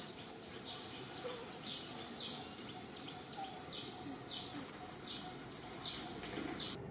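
Loud high-pitched insect chorus in forest, a steady buzz that dips in pitch in a loose pulsing rhythm, cutting off suddenly near the end.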